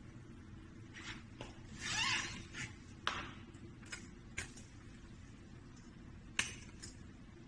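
A few sharp clicks and light knocks, with a brief rustle about two seconds in, over a low steady hum.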